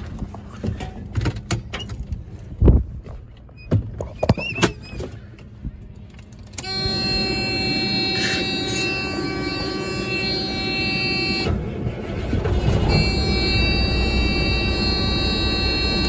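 Clicks and knocks inside a heavy truck's cab, then about six and a half seconds in the truck's diesel engine comes on suddenly and runs steadily at idle. A steady buzzing tone sounds over the engine; it stops for about a second and a half and then resumes.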